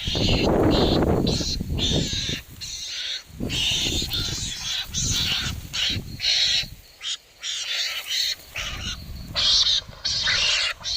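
Harsh animal cries repeated in uneven bursts, loud and short, with brief gaps between them.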